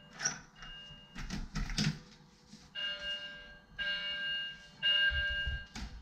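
Building fire alarm sounding, a steady multi-tone beep repeated about once a second, growing much louder about halfway through as the apartment door opens to the hallway, after clicks of the door handle and latch. The uploader believes it is a false alarm, set off by forest-fire smoke getting into the building.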